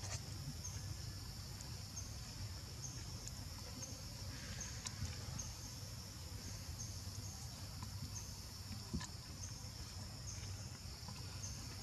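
Faint, steady outdoor insect chorus: a continuous high buzz with short chirps repeating about once a second, over a low rumble.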